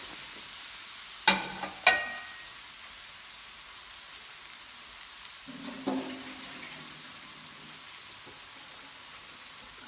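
Curry base of onions, curry paste and tomatoes sizzling steadily in a wok. Two sharp knocks with a short metallic ring come about a second and two seconds in, and a softer knock near six seconds.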